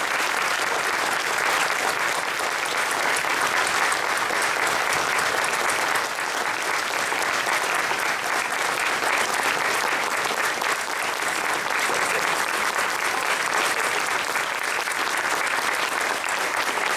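Audience applauding, a long steady round of clapping.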